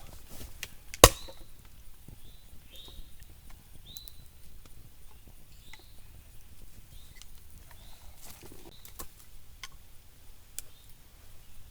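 A single sharp crack of wood about a second in, followed by scattered faint ticks and snaps.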